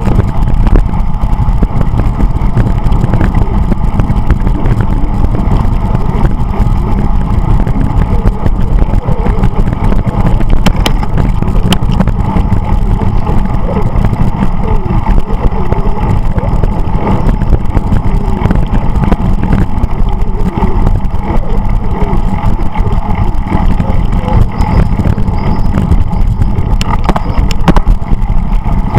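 Wind buffeting the microphone of a camera riding on a moving bicycle: a loud, steady low rumble of wind and road noise.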